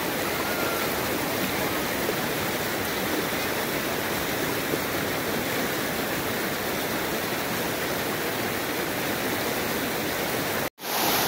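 Waterfall water rushing over rocks, a steady, even rush. Near the end it drops out for a moment and comes back brighter and louder.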